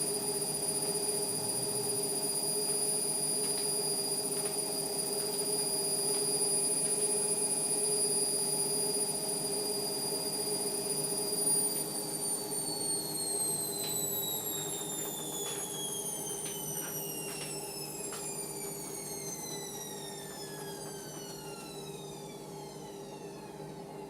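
Indesit washing machine's drum spinning at steady speed with a high motor whine. About halfway through, the whine begins to fall steadily in pitch and fades as the spin winds down, with a few light clicks as the drum slows.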